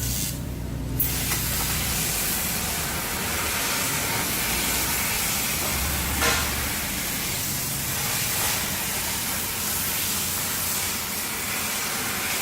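CNC sheet-metal cutting machine hissing steadily as its cutting-gas jet runs through the plate. The hiss starts about a second in.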